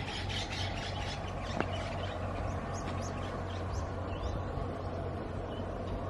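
Outdoor ambience of small birds chirping over a steady low rumble.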